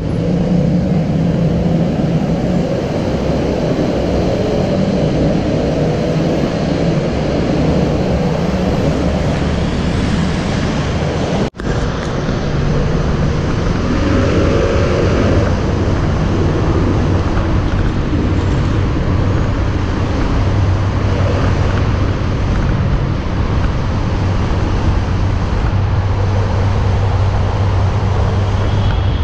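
Motorcycle engine running steadily under continuous road and wind noise, heard from a camera mounted on the bike. The sound drops out for an instant about eleven seconds in.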